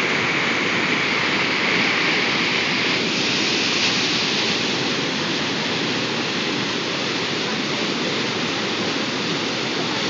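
River water in flood pouring over a low dam spillway and churning into white foam below it: a loud, steady rushing, the river running unusually high after days of rain.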